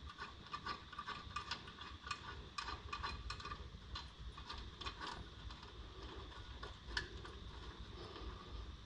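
Ratchet wrench clicking faintly in short irregular runs, several clicks a second, as the alternator's last mounting bolt is undone.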